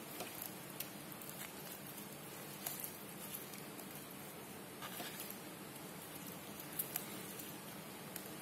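Rubber-gloved hands rubbing chili paste into napa cabbage leaves for kimchi: faint rustling and small wet clicks, with a few sharper clicks scattered through.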